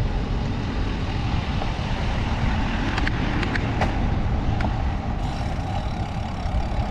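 Steady noise of road traffic passing on a busy road, with a few faint clicks about halfway through.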